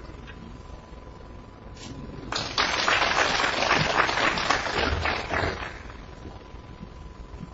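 Audience applauding a potted black in a snooker match, starting about two seconds in and dying away about three seconds later.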